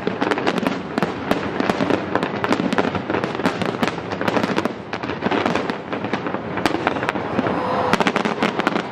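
Fireworks display: aerial shells bursting in rapid, overlapping succession, a dense run of sharp bangs and crackles over a continuous wash of noise.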